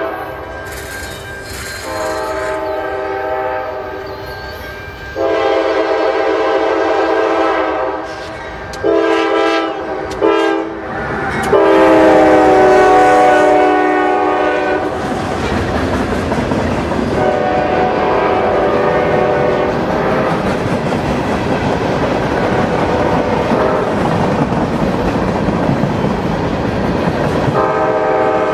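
Diesel locomotive's multi-tone air horn sounding a series of crossing blasts: two long, two short, then a final long blast, the loudest, that drops in pitch as the locomotive passes. The rumble and clatter of the train's wheels on the rails follows, with more horn blasts later on and near the end.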